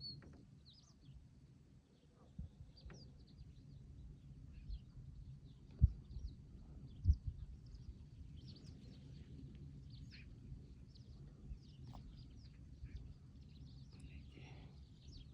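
Small birds chirping: many short, high chirps scattered throughout over a low steady rumble. Two sudden thumps stand out, about six and seven seconds in.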